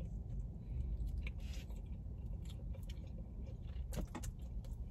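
Close-miked chewing and eating of barbecue rib meat, with small wet clicks and smacks, over a low steady hum. A short vocal sound comes about four seconds in.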